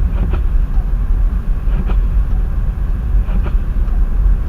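Low, steady rumble of a vehicle on the move, with a faint sweep repeating about every second and a half.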